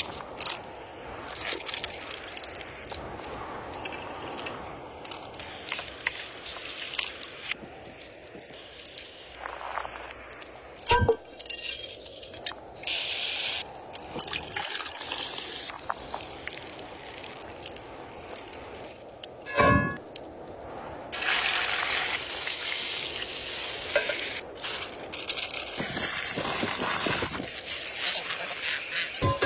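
Food-preparation sounds: liquid splashing and pouring with stretches of steady hiss, some scraping, and two sharp knocks, one about eleven seconds in and one just before twenty seconds.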